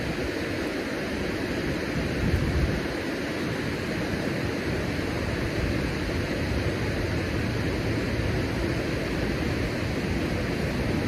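Steady rush of water pouring from a dam and churning over the rocks below, with a brief louder swell about two and a half seconds in.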